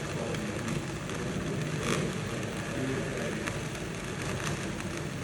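Steady running of a concrete 3D printer's machinery: a mechanical hum with a few brief clicks, one about two seconds in.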